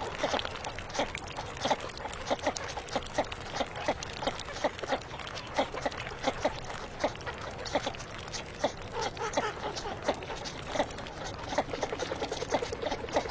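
Male and female barbash calling: a steady run of short, sharp calls, several a second, growing into a faster chatter towards the end.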